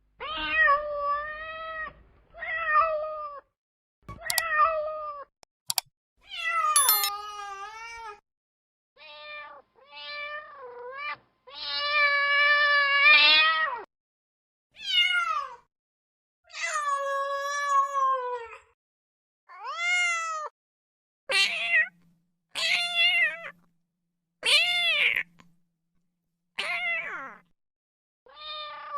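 Cat meowing over and over, about fifteen separate meows with short gaps between them, each bending up and down in pitch, some short and some drawn out. Two sharp clicks come about four and six seconds in.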